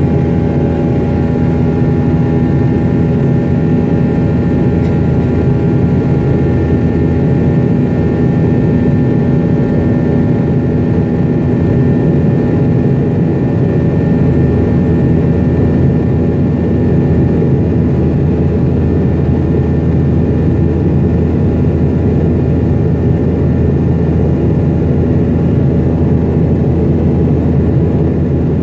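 Steady drone of an MD-90's tail-mounted IAE V2500 turbofan engines heard inside the rear cabin in flight: a deep, even rumble with a few steady whining tones over it.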